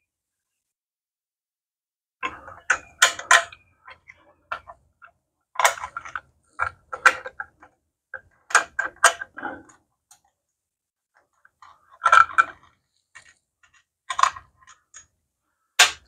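Clicks and clinks of small metal parts and hand tools being handled, in short clusters a few seconds apart with silence between.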